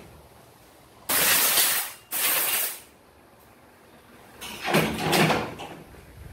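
Two short blasts from a compressed-air blow gun, each hissing loudly for under a second with a brief gap between. A duller, lower burst of noise follows near the end.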